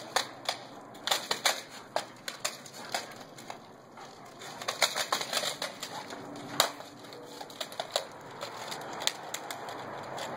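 A dog's claws clicking and scuffing irregularly on concrete as it trots and turns about with a plush toy in its mouth.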